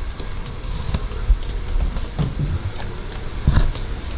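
Footsteps and handheld-camera handling noise: a low rumble with a few soft thuds, the strongest about a second in and again near the end.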